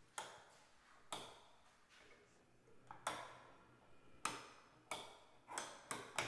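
A series of about eight sharp taps and knocks at uneven intervals, each with a short ringing tail, coming faster near the end.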